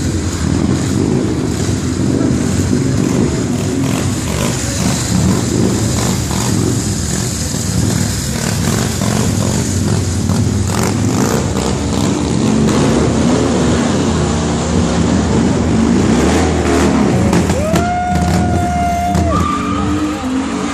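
Motor vehicle engines running, loud and steady, with a few short gliding tones near the end.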